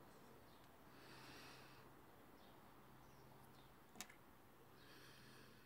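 Near silence: faint room hiss, with a single soft click about four seconds in.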